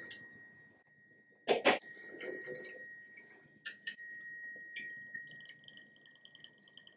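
Spirits poured from a bottle into a stainless steel jigger and tipped into a glass carafe of juice: liquid trickling and dripping, with two sharp clinks of metal and glass about one and a half seconds in.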